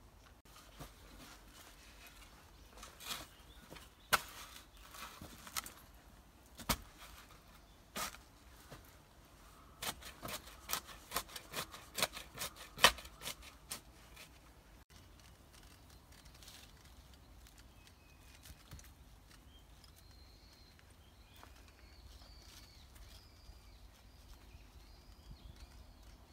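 A garden spade digging into dry soil: a string of sharp crunches and scrapes as the blade chops and turns the earth, most of them close together in the first half. The digging then stops, leaving faint bird chirps.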